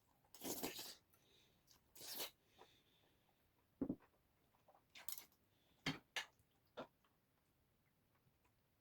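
Scattered soft handling noises, a few brief rustles and light knocks spread over several seconds, then near silence for the last couple of seconds.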